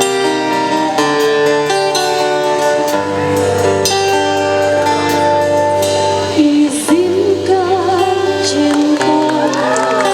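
Live music with guitar accompaniment. About six and a half seconds in, a woman's singing voice comes in, holding notes with a wide vibrato.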